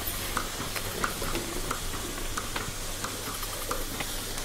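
Goat milking machine running: a steady hiss over a low hum, with light regular ticks about two or three a second.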